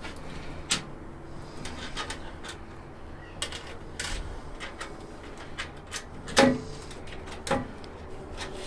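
Scattered light clicks and knocks of metal hardware and tools being handled while bolting casters onto a steel tool cart, with two louder knocks near the end.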